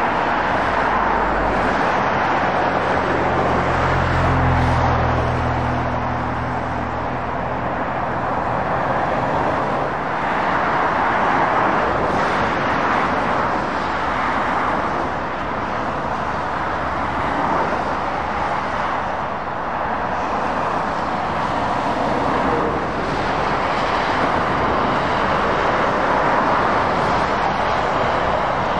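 Motorway traffic passing: a steady rush of tyre and engine noise from lorries and cars that swells and eases as vehicles go by. A low engine drone runs through the first several seconds, then fades.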